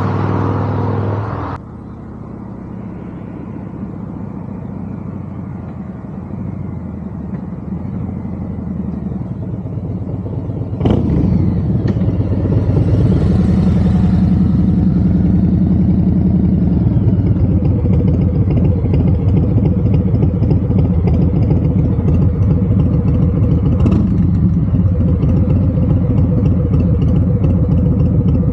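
Harley-Davidson FXDR 114's Milwaukee-Eight 114 V-twin through a Two Brothers Comp-S 2-into-1 exhaust. A loud vehicle pass-by cuts off about a second and a half in, then a quieter engine sound builds. From about eleven seconds in the bike's engine runs close by, rising briefly before settling into a steady, loping idle.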